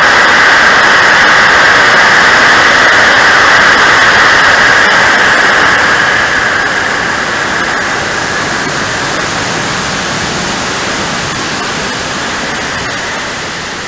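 A model jet's TJ74 kerosene turbine and the rush of air, heard from the camera on board. It is a loud, steady, high hiss that eases gradually from about halfway through as the jet throttles back and descends towards the runway.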